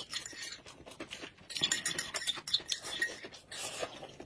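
Close-up eating sounds: wet chewing and mouth smacking, mixed with chopsticks clicking against a ceramic plate. The clicks and smacks come thick and fast from about a second and a half in.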